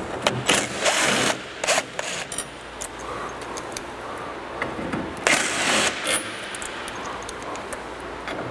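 Cordless drill-driver running in short bursts as it backs out the grille's Torx screws. The longest runs come about a second in and about five seconds in.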